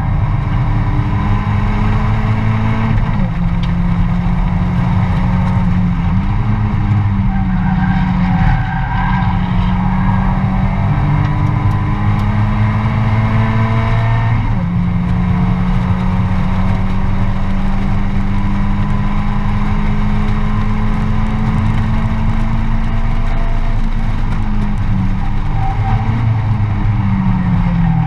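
Mazda MX-5 race car's four-cylinder engine running hard at racing revs, heard from inside the stripped cabin. The engine note holds mostly steady for long stretches and dips briefly a few times at gear changes.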